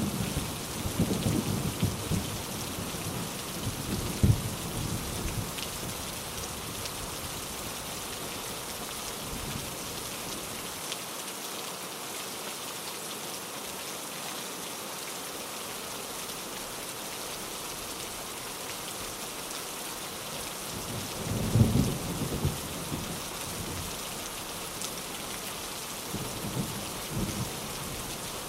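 Steady rain with low rumbles of thunder in the first few seconds, again about three-quarters of the way through and briefly near the end.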